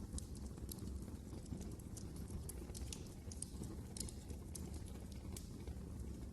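Wood fire crackling in a fireplace: a steady low rumble of burning with frequent sharp, irregular pops and snaps.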